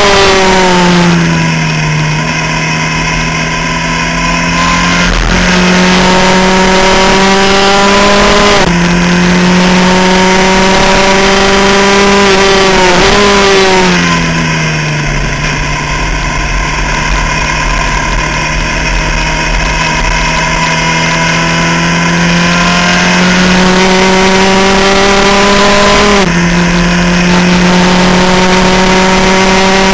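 Skip Barber open-wheel race car's engine heard onboard under hard driving. The pitch climbs steadily in each gear and drops suddenly at upshifts about 5, 9 and 26 seconds in. It falls away twice, near the start and about halfway, as the car slows for corners.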